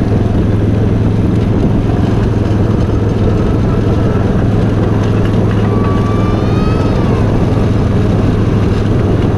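Miniature ride-on train running steadily along its track, its motor giving an even, unchanging hum. A short high tone rises slightly and then drops away about six seconds in.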